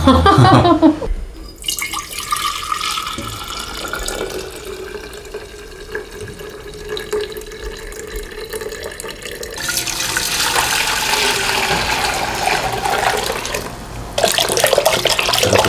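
Vegetable broth being poured, first into a glass jar, then from a stainless steel bowl into an enamel stockpot. The pour grows louder about ten seconds in.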